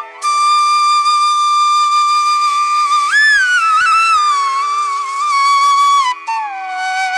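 Background music: a flute playing long held notes that bend and slide between pitches, over a steady drone.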